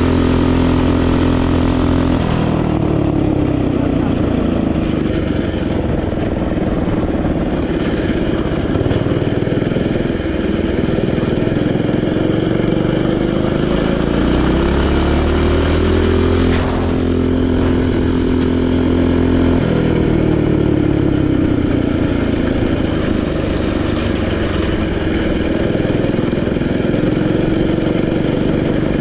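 Mini bike's Predator 212 single-cylinder four-stroke engine running hard, its pitch dropping and climbing several times as the throttle is eased and opened, held steady at high revs for a few seconds in the middle. It runs smoothly after a stock camshaft swap, a sign that the cam timing is right.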